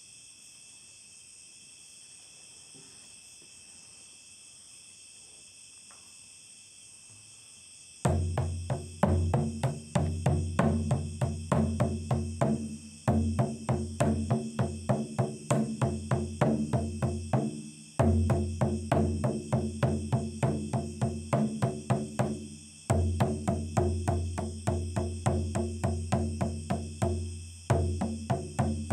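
Faint steady cricket chirring for about eight seconds, then a large rawhide frame drum struck with a beater in a fast, even beat of roughly four strokes a second. The beat breaks briefly about every five seconds and picks up again with a louder stroke, while the crickets continue underneath.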